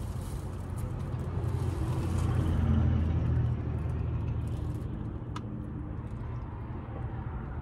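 Low motor-vehicle rumble. It swells for a second or two about two to three seconds in, then settles back to a steady level.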